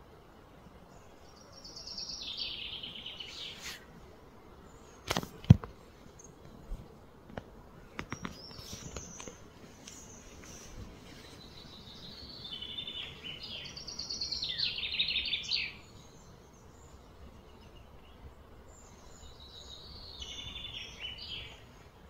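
Outdoor ambience with a bird singing three bouts of high, rapid trilling a few seconds long, with some sharp clicks about five seconds in and again around eight seconds.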